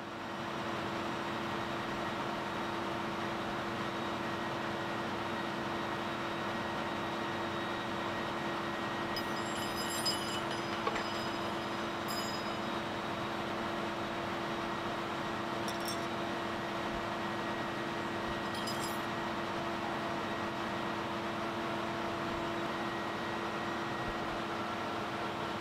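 Steady engine-room machinery drone with a held hum. A few light metallic clinks from spanners on the rocker-arm tappet adjusting screws come about ten, twelve, sixteen and nineteen seconds in, while the valve clearance is being set.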